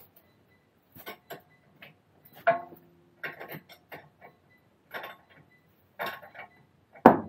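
Metal spanners and hand tools clicking and clinking against each other and the parts: scattered sharp clicks, a ringing metal clink about two and a half seconds in, and a loud knock near the end.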